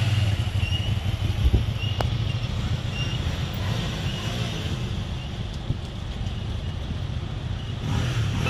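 Cruiser motorcycle engine running as the rider pulls away and rides off across the test course, growing fainter with distance, with wind noise on the microphone.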